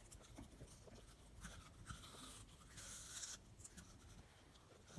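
Cavalier King Charles Spaniel puppy chewing and crunching a slice of raw green apple, faint, with a few louder crunches in the middle.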